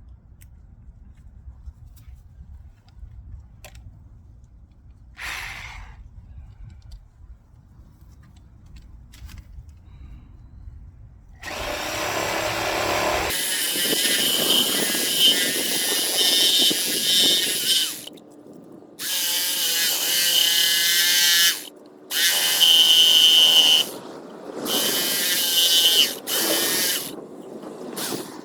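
A handheld power tool running in about five bursts of one to six seconds each, starting about halfway through, its pitch wavering as it runs; before that only a few faint clicks.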